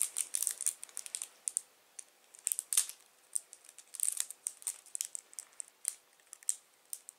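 Plastic packaging crinkling and crackling in quick bursts as fingers pick and pull at it, trying to get it open.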